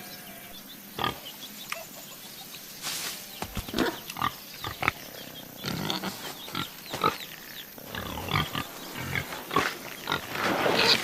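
Cartoon animal sound effects: a busy string of short, irregular animal noises.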